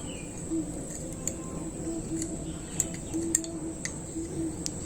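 Faint light clicks of small metal parts being handled as carbon brushes and springs are pressed into a motorcycle starter motor's brush holder, with a bird cooing faintly in short, repeated low notes.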